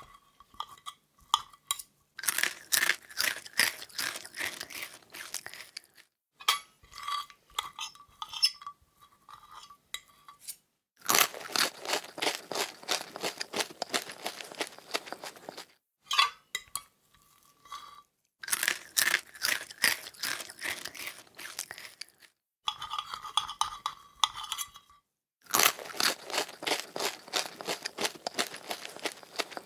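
Close-up crunching of crispy food being chewed, in four bouts of dense crunches of a few seconds each. Short pauses between the bouts hold lighter clicks.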